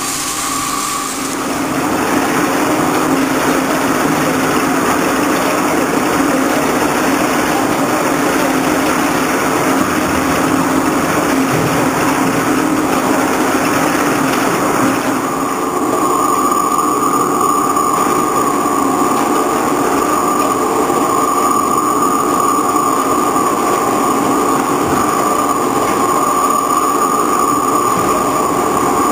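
Hwacheon VT 4500 vertical turning lathe turning a large SM490A steel ring at an 18 mm depth of cut with coolant flowing: steady cutting noise over a machine hum, with a high whine that strengthens about halfway through.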